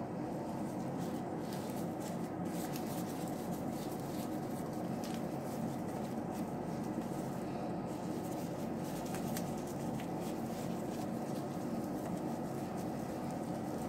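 Steady commercial-kitchen background hum, with faint scattered clicks and rustles from plastic-gloved hands rolling sushi on a cutting board.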